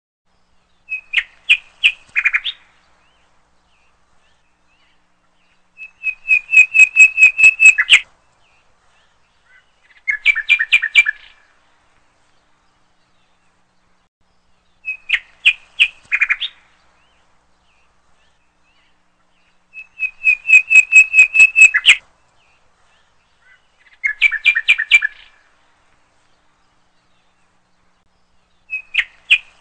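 A bird chirping in quick runs of sharp, high notes, each run lasting a second or two with silence between, the same three-run sequence repeating about every 14 seconds.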